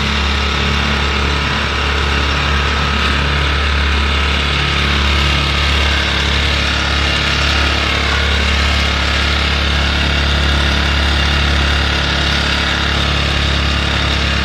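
Small outboard motor on a kayak running steadily, pushing the boat along.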